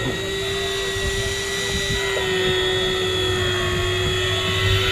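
Electric deep-drop fishing reel's motor giving a steady whine as it winds a hooked fish up from deep water, over a low rumble.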